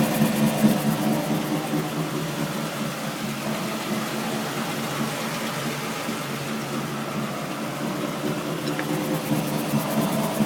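Steady, quite loud droning from a vehicle's driveline with the wheels turning: a hum holding several steady pitches that eases a little in the middle and builds again near the end. The tail shaft has been replaced and the differential is newly reconditioned, so the owner asks whether it is a differential pinion or carrier bearing.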